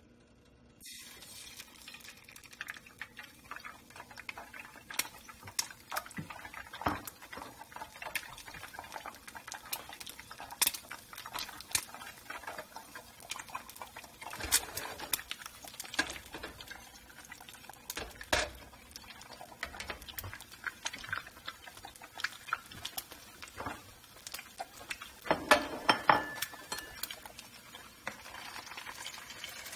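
Beaten eggs sizzling in hot oil in a nonstick frying pan, starting suddenly about a second in as they hit the pan, with scattered sharp pops and spatters throughout. A few louder knocks and pops come near the end.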